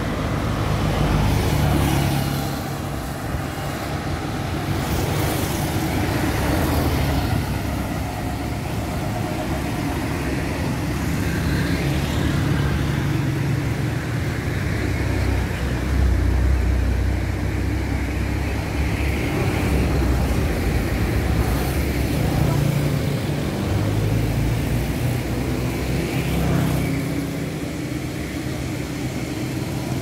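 Road traffic going by close at hand: trucks and cars passing, with steady tyre and engine rumble that swells and fades as each vehicle goes by.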